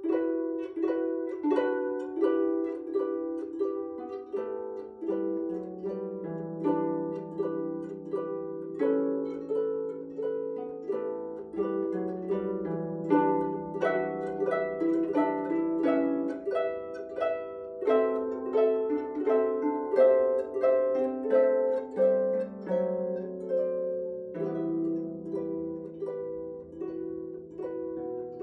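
Camac Erbanova lever harp played solo: a steady stream of plucked notes, with a melody over lower bass notes that come in about five seconds in.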